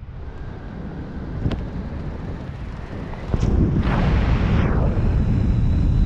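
Wind rushing over the camera microphone during a skydiver's descent under an open parachute canopy, a low buffeting rumble that gets much louder about three seconds in, with a brief hissing gust around four seconds.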